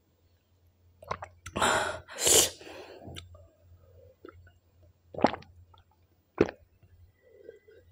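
A person blowing out hard through the mouth, two loud breathy huffs about a second and a half in, against the burning of a very hot chili chip. Then two short gulps as she drinks from a glass, about five and six and a half seconds in.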